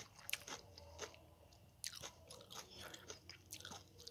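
Faint eating sounds: a metal fork clicking and scraping against a ceramic bowl as it works through instant ramen noodles, with chewing. The clicks are short and scattered, most of them in the second half.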